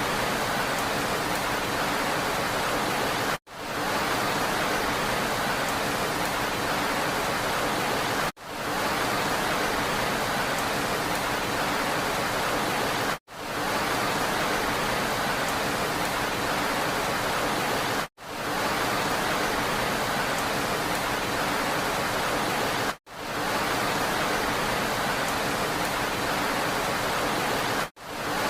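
Steady, even rain hiss with no separate drops standing out. It cuts out briefly about every five seconds, six times, and fades straight back in, as a short recording played on a loop would.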